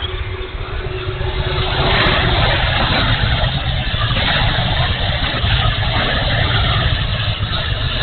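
E-flite F-16 Thunderbirds 70mm electric ducted fan in flight, its rushing whine mixed with heavy wind noise buffeting the microphone of the camera mounted on the plane. The sound swells louder about a second and a half in and stays loud.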